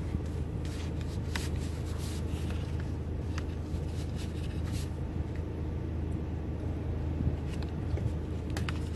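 Steady low hum of a car interior, with light rustling and clicks of a plastic sauce packet and tray as cheese is crumbled onto a Lunchables mini pizza.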